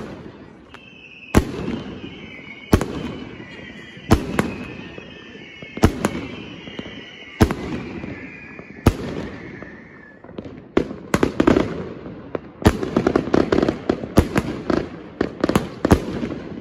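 Triplex XB4100 'Air Force One' consumer firework cake firing shells into the air, each a sharp bang, about one every second and a half. About ten seconds in, it breaks into a fast volley of many shots close together.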